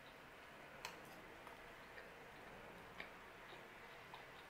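Near silence with faint, short mouth clicks of chewing pizza, coming at uneven intervals about a second apart.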